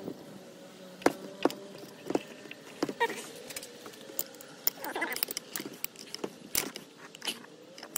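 Scattered light clicks and clinks of a wrench and blower-motor parts being handled on a workbench: about a dozen sharp, irregular taps.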